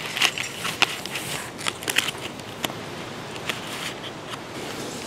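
Irregular crackling and rustling of a small paper first-aid wrapper being torn open and crinkled in the hands.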